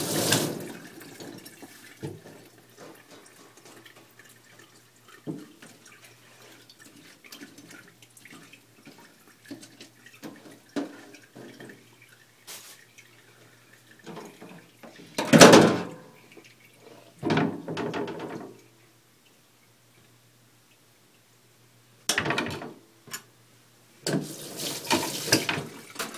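Kitchen tap running into a stainless steel sink, shut off just after the start, then turned on again in several short bursts around the middle and near the end. Light knocks of utensils and a faint low hum in the quieter stretches.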